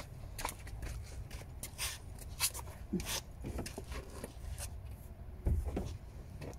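Handling noises while working on the car: scattered rustles and light clicks, with a dull low thump about five and a half seconds in.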